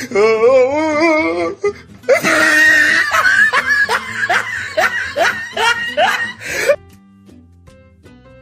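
Loud, warbling laughter over background music: a drawn-out wavering laugh, then a fast run of laughs. The laughter stops about seven seconds in, leaving only the music.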